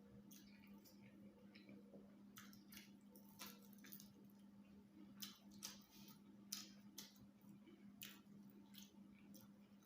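Quiet, wet chewing and lip-smacking with irregular soft clicks, a person eating rice and ayamase stew, over a steady low hum.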